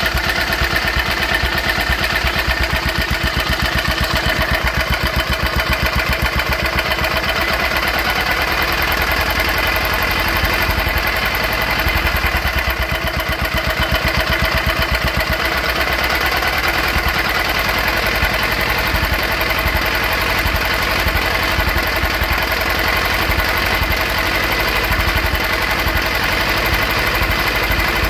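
High-compression diesel engine converted to spark ignition for woodgas, running steadily with an even firing beat while its ignition timing is set by hand, moving the pickup coil to around 13° before top dead centre.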